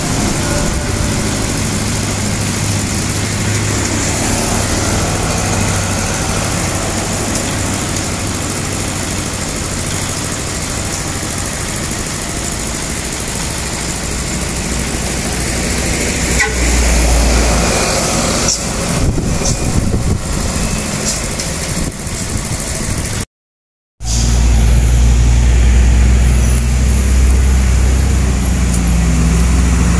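Heavy diesel truck engines labouring up a steep climb under loads of sugarcane, a low steady engine note that grows louder. Near three quarters through the sound cuts out for under a second, then a truck engine returns, louder and deeper.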